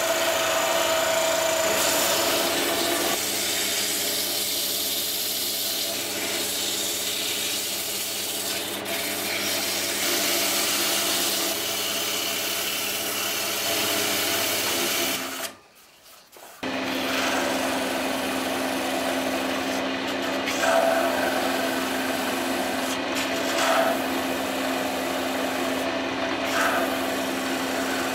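Small wood lathe running with a steady motor hum while a hand-held turning tool cuts and scrapes a spinning wooden spindle, giving a continuous rubbing hiss of shavings. The sound cuts out for about a second halfway through, then carries on.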